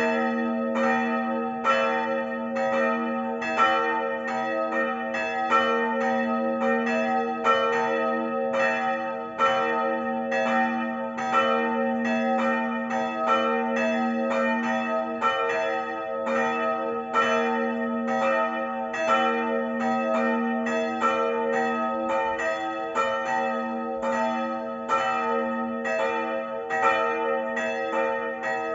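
Several church bells in a church tower ringing together in a continuous peal, strokes overlapping at about two to three a second over a steady hum. This is the evening ringing (Abendläuten), which marks the end of the working day and calls the children home.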